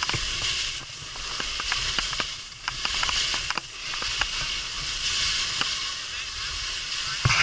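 Skis hissing and scraping over snow during downhill turns, the hiss swelling and easing with each turn, with scattered sharp clicks and a low rumble of wind on the microphone.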